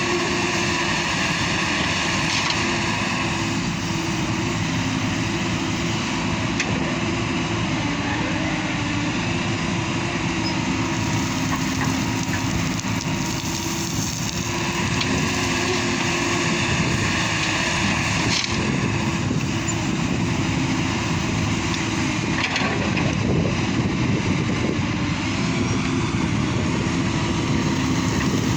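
Hyundai R220LC crawler excavator's diesel engine running steadily under working load, its pitch dipping slightly now and then. A hydraulic hiss swells at the start and again about halfway through as the machine digs and swings. A few light knocks are scattered through it.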